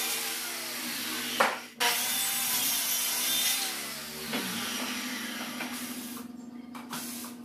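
Handheld electric circular saw cutting through a plywood sheet, with a short break about a second and a half in. About four seconds in the saw is switched off and its pitch falls as it spins down, followed by quieter handling knocks.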